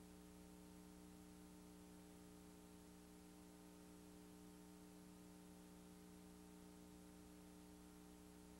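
Near silence: a faint, steady electrical hum with background hiss that does not change.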